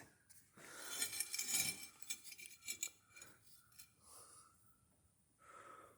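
Light metallic clinks and rattles from parts of a vintage Delta Milwaukee surface grinder being handled and reset by hand. They are busiest in the first half and trail off into a few faint scrapes.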